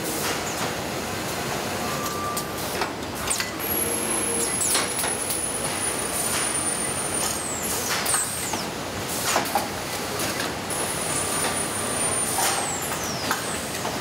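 Automated garment-on-hanger conveyor machinery running: a steady mechanical hum with frequent clicks and clacks of hangers and carriers on the metal rails. Twice a high-pitched motor whine holds steady and then falls in pitch as the drive slows.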